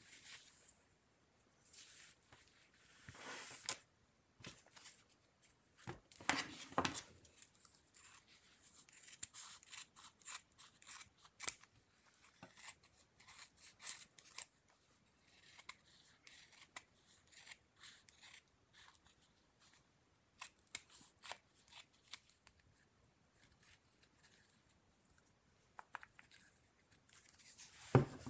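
Small scissors snipping through fur in many short cuts, with pauses between, and soft rustling as the fur is handled.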